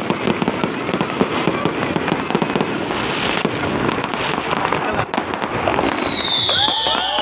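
Fireworks going off: a dense, continuous crackle of rapid bangs, with a high whistle falling in pitch near the end.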